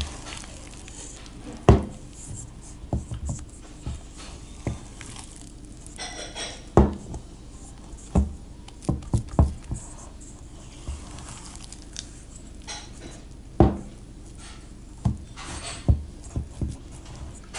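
Wet sourdough dough being stretched and folded by hand in a stainless steel bowl: irregular slaps of the dough and knocks of the metal bowl against the counter.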